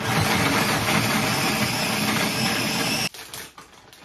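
Electric mini food chopper running, chopping carrots, for about three seconds before it stops suddenly.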